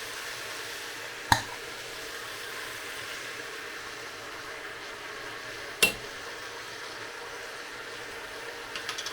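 Rogan Josh curry sauce being added to a hot pan: a steady sizzling hiss with two sharp clinks against the pan, about a second in and again a few seconds later.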